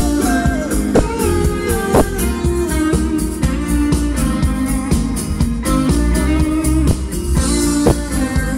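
Music with guitar and heavy bass playing through a car audio system, the subwoofer carrying a strong, steady low end.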